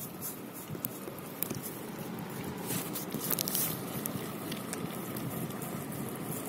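A mother dog licking and mouthing a newborn puppy that is still in its birth sac: wet licking with crackling of paper and plastic wrappers in the whelping box, the crackling densest around the middle.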